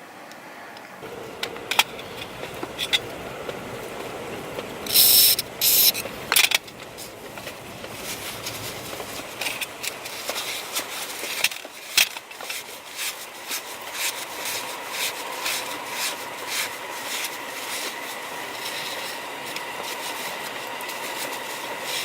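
Small parts and tools being handled while an AAC valve is taken apart and cleaned: scattered clicks and scraping, with three short, loud noisy bursts about five to six seconds in.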